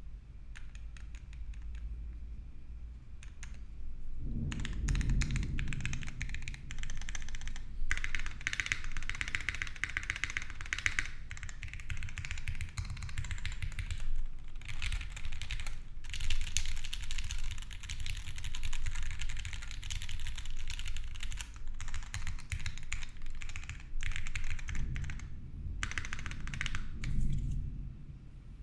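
Typing on a Keycult 1/60 60% mechanical keyboard with a brass plate, GMK keycaps and lubed, filmed linear KS3 Gateron switches with UMPHWE stems: a run of keystroke clacks, sparse at first and fuller from about four seconds in, with short pauses. A thunder sound effect rumbles low underneath near the start and again near the end.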